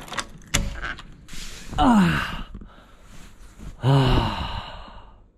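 A few clicks from a keycard door lock being opened, then a man letting out two long sighing groans with falling pitch, about two seconds apart. These are the exhausted moans of someone ill and close to collapsing.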